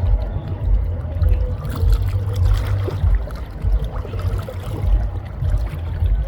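River water flowing and splashing under a loud, uneven low rumble.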